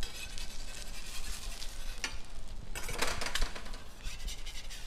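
Metal spatulas scraping across a flat-top griddle as they slide under a fried egg, over the sizzle of frying; the scraping is loudest about three seconds in.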